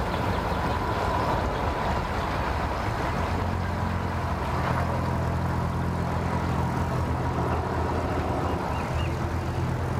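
A single 300 hp V6 outboard motor runs in gear, power-loading the boat onto its trailer. Its low engine note grows stronger about three and a half seconds in and then holds steady.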